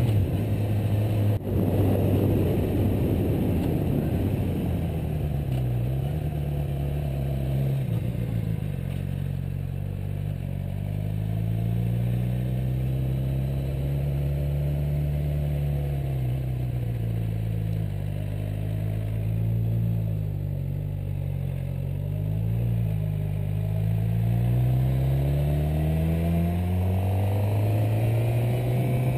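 Suzuki GSX-R600's inline-four engine running under way, its note rising and falling with throttle and speed.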